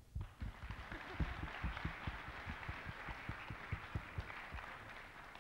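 Audience applauding, building up within the first second and fading toward the end, with many dull low thumps mixed in.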